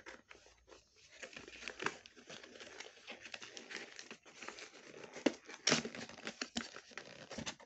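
Plastic toy packaging crinkling and rustling as it is handled, with irregular crackles throughout.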